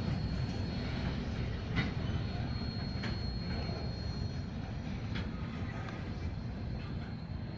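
Loaded tank cars of a freight oil train rolling by on the rails: a steady low rumble with a few light wheel clicks, slowly fading as the train moves away.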